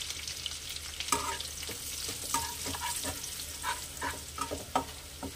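Steel spatula scraping and stirring a spice mix of ginger and mustard powder in a nonstick kadai, in short repeated strokes. The oil sizzles underneath with a steady frying hiss.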